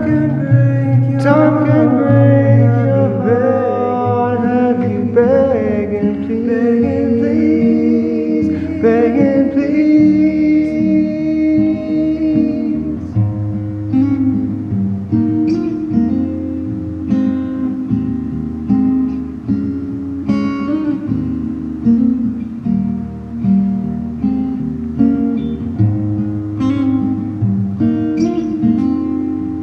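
Music: strummed acoustic guitar with a gliding melody line sung by a 'cat choir' of tuned cat meows, the melody strongest in the first dozen seconds and the guitar carrying on after.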